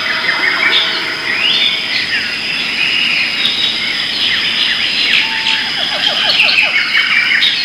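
Dense chorus of several birds calling, with many overlapping chirps, whistles and squealing notes over a steady high tone. About five seconds in, a short series of rapid lower notes is heard.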